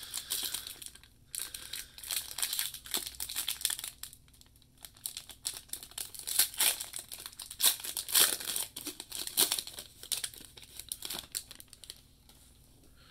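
Foil wrapper of a Panini Prizm baseball card pack crinkling as it is torn open and pulled apart by hand: a run of sharp crackles with a short lull about four seconds in, loudest a little past the middle, dying away near the end.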